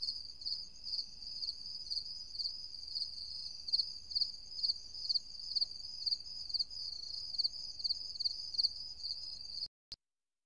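Cricket chirring: a steady high trill pulsing about twice a second, which cuts off suddenly near the end.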